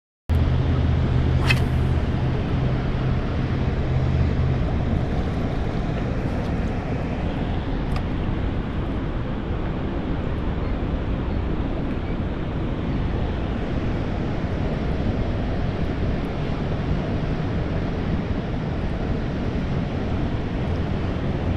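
Steady rushing wind noise on the camera microphone, with a low hum under it for the first few seconds and a couple of brief clicks.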